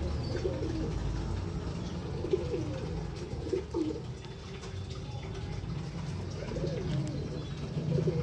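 Pigeon cooing: low coos come in several groups, at the start, around two to four seconds in and again near the end, over a steady low rumble.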